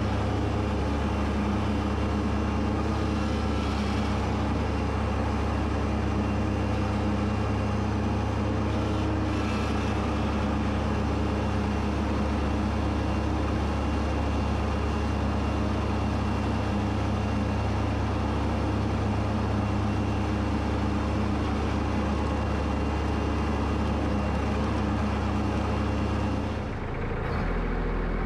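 Kubota B2601 compact tractor's diesel engine running steadily under load while mowing, with a constant low drone. Near the end the note dips and shifts.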